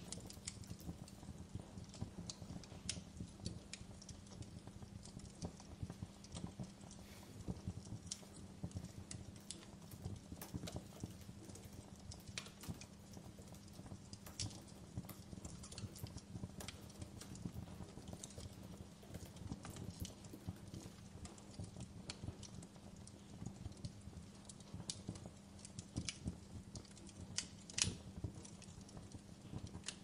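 Quiet laptop keyboard typing under a crackling fireplace: a dense low crackle with sharper pops and clicks at irregular moments.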